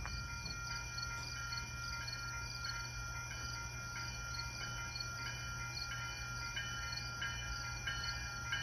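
Railway level-crossing bell ringing steadily, about two to three strikes a second, each strike ringing on, over a steady low rumble from the railway.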